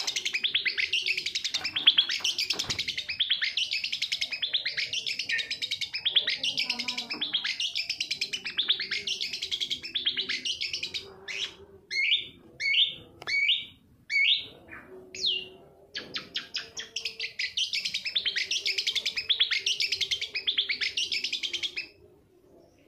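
Long-tailed shrike (cendet) song: fast chattering phrases, each about a second long, one after another. In the middle these break into a few short, separate whistled notes, then the chattering resumes and stops shortly before the end. A faint steady hum runs underneath.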